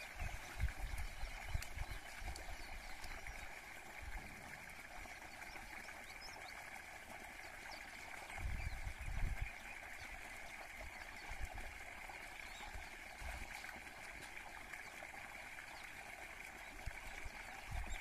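Water pouring steadily from a pipe outlet into a flooded field, an even splashing hiss. There are a few low thumps near the start and about halfway through.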